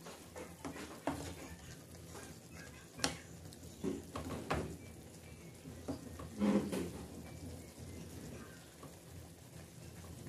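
Stir-fry sizzling in a pan, with irregular clinks and scrapes of a spatula against the pan.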